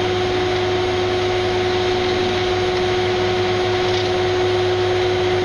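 Dash 8 Q400's twin Pratt & Whitney PW150A turboprops and six-bladed propellers at takeoff power, heard from the cockpit during rotation and liftoff. It is a steady drone with one held tone over a low propeller hum and the rush of air.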